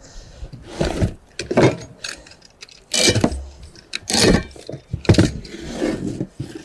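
Steel parts of a folding barbecue grill clanking and rattling as they are handled and lifted out of their box: a run of separate metal knocks, roughly one a second, including its square-tube legs.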